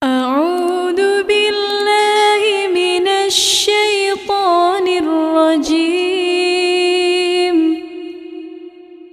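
A single unaccompanied voice chanting Quranic recitation in slow, melodic tajwid style, holding long drawn-out vowels with ornamented pitch turns. There is a quick breath about three and a half seconds in, and the line fades near the end.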